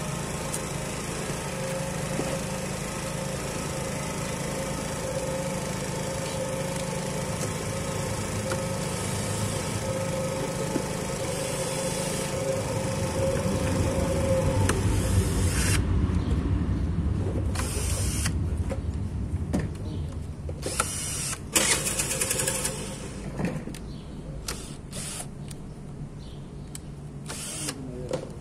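A steady motor hum with one held tone for about fifteen seconds. Then a compact cordless drill-driver runs in short stop-start bursts on the bolts of a scooter's CVT transmission cover.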